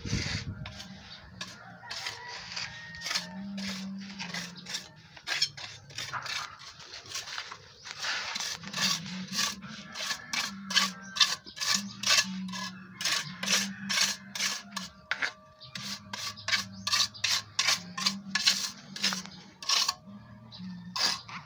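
Steel trowel scraping wet sand-and-cement mix across the top of a steel hollow-block mould to level it, in short repeated strokes. The strokes are sparse at first and come quickly, about two to three a second, from about eight seconds in.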